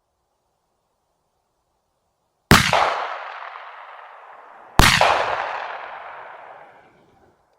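Two shotgun shots from a Beydora BDR-90, about two seconds apart, each followed by a long echo that fades over about two seconds.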